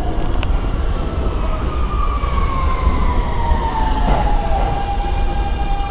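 New York subway train pulling into the station, its traction motors whining and falling steadily in pitch as it slows, then holding one note, over a constant low rumble of wheels on rails.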